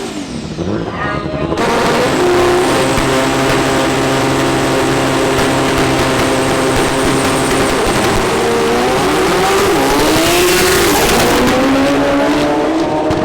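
Front-wheel-drive drag car engine running hard at high revs, starting abruptly about a second and a half in. The note holds steady at first, then climbs and drops several times in the second half.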